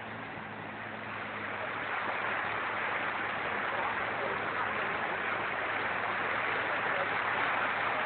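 Floodwater rushing in a steady noisy torrent, growing louder over the first couple of seconds and then holding.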